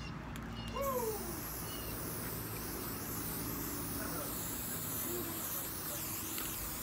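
Aerosol can of Rust-Oleum American Accents metallic gold spray paint hissing steadily as it sprays, starting about a second in.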